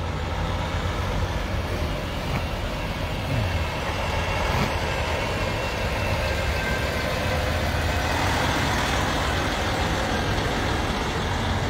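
A line of cars driving past in a steady stream, a continuous engine and tyre noise that swells a little partway through.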